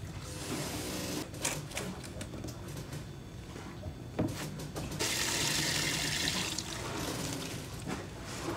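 Liquid cleaner is poured from a plastic jerry can into a plastic bucket, followed by a few knocks of handling. About five seconds in, a hose nozzle sprays water hard into the bucket for a second or two, then runs more softly, diluting the teak cleaner three parts water to one.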